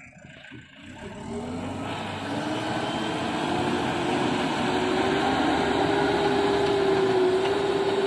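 JCB backhoe loader's diesel engine revving up under load while the machine drives with a full front bucket of soil. The pitch rises over the first few seconds, then holds steady at high revs.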